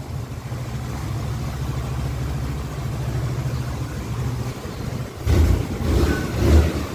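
Hero Destini 125 scooter's single-cylinder four-stroke engine idling steadily, freshly rebuilt with a new piston, camshaft and timing chain, then revved twice briefly with the throttle near the end.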